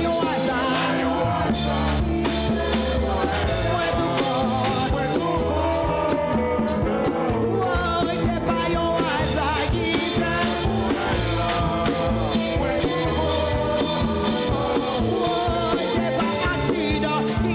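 Live church praise music: a band with drum kit, bass and keyboards playing while voices sing.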